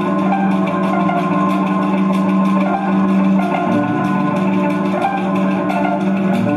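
Experimental electronic sound score for dance, a looped collage of processed sounds: several steady droning tones, the strongest low, with a stream of short clicks and small pitched blips over them.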